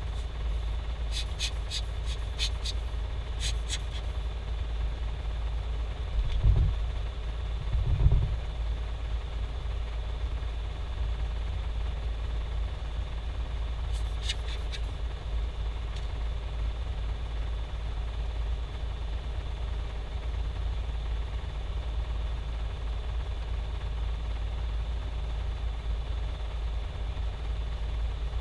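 Hard drive running with a steady low hum, with short runs of rapid sharp clicks, about four or five a second, in the first few seconds and again about halfway. Two dull thumps come between them.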